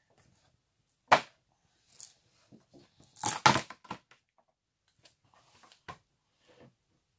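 Thin plastic casting mould crackling and cracking as it is flexed and pulled away from a cured epoxy-resin block. Irregular sharp cracks with pauses between them, the loudest cluster about three seconds in.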